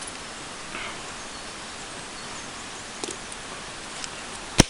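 Steady background hiss with a few faint clicks as small gear is handled, then one sharp, loud click near the end.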